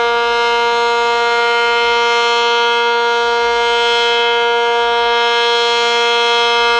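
ACA Cyclone outdoor tornado siren sounding a loud, steady tone at one held pitch, with no rise or fall.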